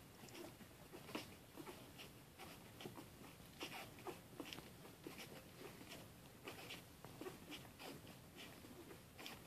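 Faint, scattered little squeaks and snuffling noises from a litter of young puppies sleeping in a pile.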